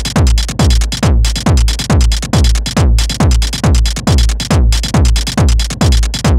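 Electronic dance music: a steady kick drum and deep bass at about two beats a second, under a dense, bright upper layer that cuts out briefly every couple of seconds.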